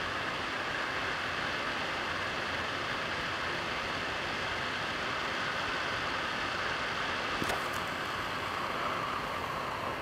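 Hot air rework station blowing a steady hiss of hot air onto a small circuit-board connector, melting its solder and flux. There is a faint click about seven and a half seconds in, and the air stops at the very end.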